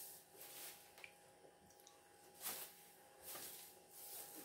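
Near silence with a few faint, soft rustling and handling noises as a plastic jar is picked up and brought into view.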